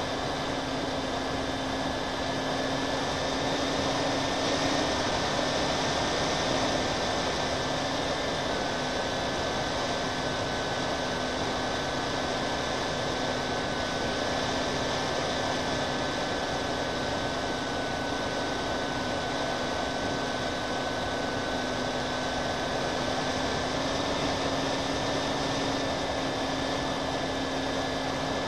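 Twin-motor FPV model airplane in flight, heard from its onboard camera: a steady whine from the motors and propellers over rushing air noise. The whine drops slightly in pitch about eight seconds in and rises again near the end.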